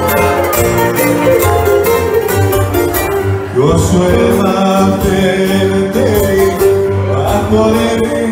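Live Greek band playing a tsifteteli, with acoustic guitar and keyboard; a melody line slides up in pitch a few times over a steady low beat.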